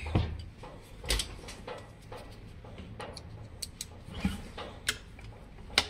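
Screwdriver driving screws into a battery bracket by hand: a few scattered small clicks and taps of metal on the bracket, with the loudest about a second in and just before the end.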